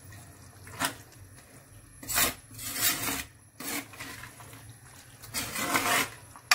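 Steel slotted spatula stirring and scraping thick mutton curry against the sides of a clay pot, in several irregular scraping strokes, the longest one a little past five seconds in.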